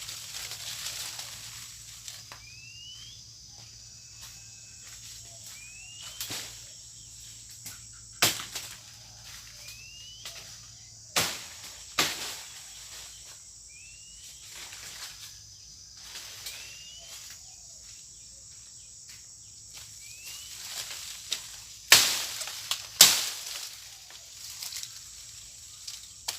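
Blows of a blade chopping into a broken mango branch: a handful of single sharp strikes several seconds apart, two of them coming in quick pairs. Between the strikes a bird gives a short rising call every few seconds over a steady high insect drone.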